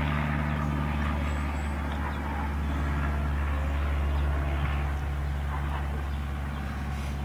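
A steady low mechanical hum, like an engine running, with even outdoor background noise.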